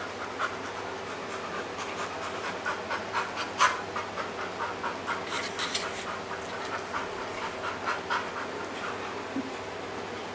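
Dog panting in quick short breaths, with scattered clicks and scuffles among them; the sharpest click comes about three and a half seconds in.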